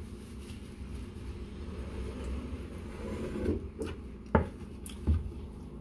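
Low steady room hum with a few short, sharp knocks and taps in the second half, the loudest a little after four seconds in, from handling food and dishes at a table.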